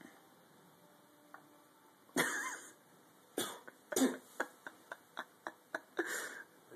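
A person coughing in several loud, short bursts, starting about two seconds in, with quick clicks and taps between the later coughs.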